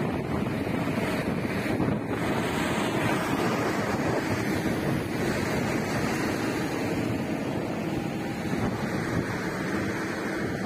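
Wind buffeting the microphone in a steady rush, over the running of heavy road-work machinery and trucks.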